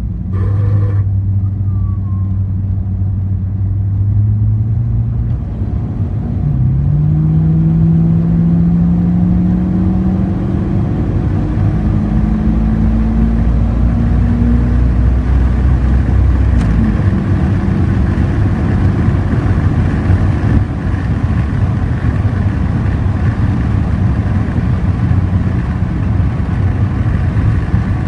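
Car with a Holden Trimatic three-speed automatic transmission running under way over a steady rumble. Pitched whining tones climb in pitch twice, then hold steady: the strange noise from the Trimatic.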